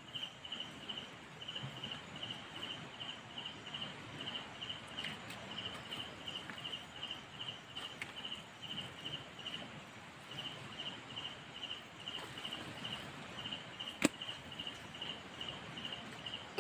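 Insect chirping in a steady run of short, evenly spaced high pulses that pause briefly about ten seconds in, with faint rustling and one sharp click near the end.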